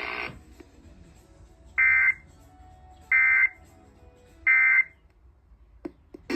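Three short bursts of Emergency Alert System SAME data tones: the end-of-message code sent three times to close an alert broadcast. Each is a harsh digital squawk about a third of a second long, spaced a little over a second apart.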